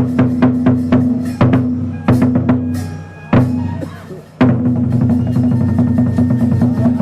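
Kagura music with fast, even drum strikes over a steady low accompaniment. The drumming thins out and fades about two seconds in, is broken by a single strike, then comes back in full at about four and a half seconds.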